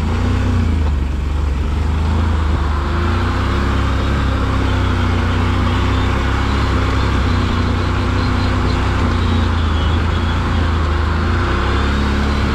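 Can-Am Renegade ATV's V-twin engine running steadily at low trail speed, its note rising and falling a little as the throttle changes.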